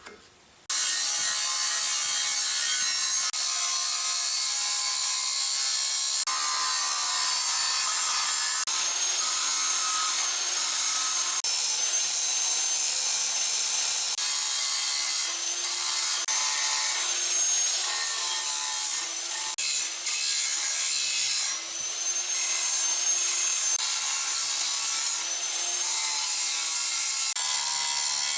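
Angle grinder cutting and grinding steel angle iron: a steady grinding hiss with a high motor whine that drifts in pitch as the load changes. It starts abruptly just under a second in and dips briefly a few times near the middle.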